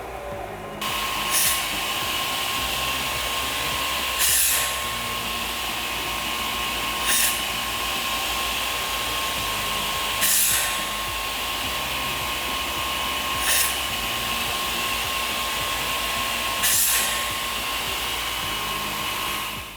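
Pistorius MN200 double miter saw running on its twin 1.5 hp saw motors with 12-inch blades. It is a steady machine whine that steps up less than a second in, broken by six brief, louder bursts about every three seconds.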